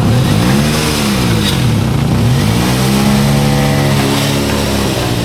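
Toyota AE92 Corolla Levin GTZ's supercharged 4A-GZE four-cylinder engine revving as the car pulls away: it climbs and drops back about a second in, then climbs again, holds, and eases off near the end. The exhaust has a leak, and the car sounds rough.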